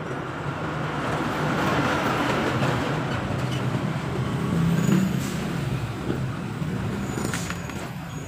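Water pouring from a plastic jug into a radiator's filler neck as the radiator is filled. Under it runs the steady hum of a motor vehicle engine, which swells to its loudest about five seconds in.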